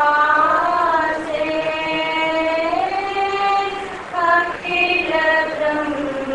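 Chanting voices singing long held notes that rise and fall slowly in pitch, with a brief break about four seconds in.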